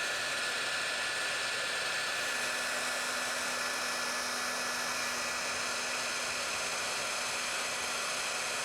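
Handheld blow dryer running steadily on one setting, a constant rush of air with a faint motor whine, used to melt the ice in a frozen rain barrel valve.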